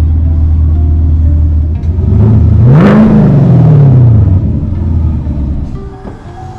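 Chevrolet Camaro SS (Gen 6) 6.2-litre V8 idling with a low rumble, blipped once about two seconds in, its pitch rising and falling back to idle over about two seconds. The exhaust still has its factory secondary catalytic converters, so this is the stock sound before the cat delete. The sound becomes quieter near the end.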